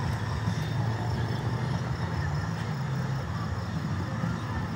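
Steady low hum and rumble of distant engines.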